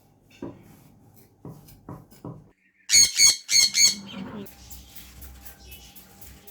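A bird calling: four loud, short calls in quick succession about three seconds in, after a few soft thumps.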